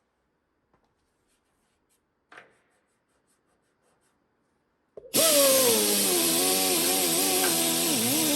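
A handheld electric power tool runs under load for about four seconds, starting a little past halfway, its motor pitch wavering up and down as it bogs and recovers, then it stops. A light knock comes a couple of seconds before it.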